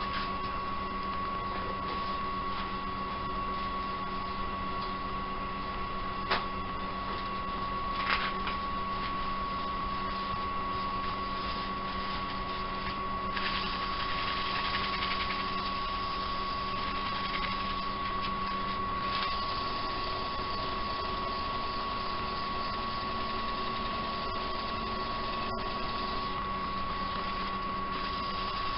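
Wood lathe running steadily with a constant motor whine. For several seconds about halfway through a louder hiss rises over it, and there are a couple of sharp clicks before that.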